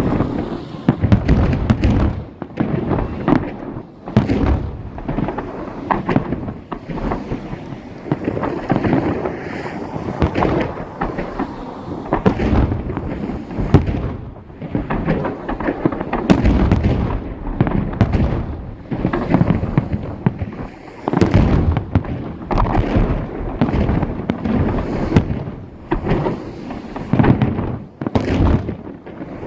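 Fireworks salute: shells bursting one after another in a dense, unbroken run of booms, each trailing off in a rolling echo.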